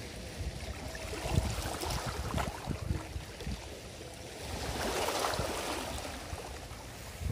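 Sea water lapping at the shore with wind rumbling on the microphone, a few light knocks early on, and a louder wash of water swelling and fading about five seconds in.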